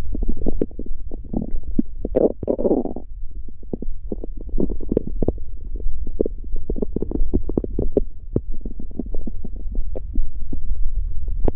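Human stomach growling and gurgling, a rapid irregular run of short gurgles over a steady low hum, with one longer, fuller gurgle about two seconds in.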